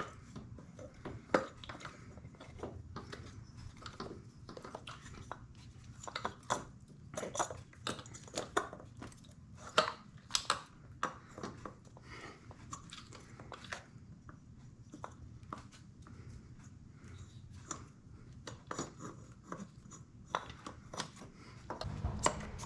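Irregular small clicks, taps and scrapes of metal parts as a Yamaha RZ350 two-stroke cylinder is worked by hand down over its piston, with a low steady hum underneath.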